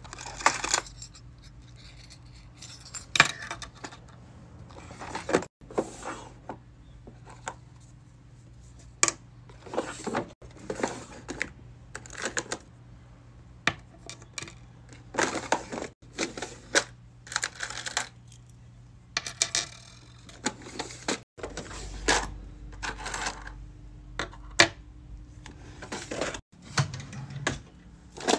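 Keychain hardware and plastic parts being handled: metal key rings and clasps jangling and clinking, and plastic pieces rattling as they are picked out of plastic storage bins and set down on a table, in irregular short clicks and rattles.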